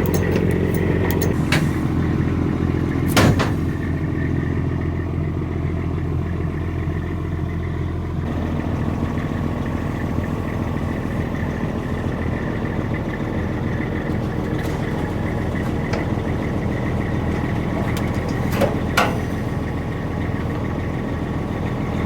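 Heavy diesel engine running steadily at idle, with two brief sharp noises, one about three seconds in and one near the end.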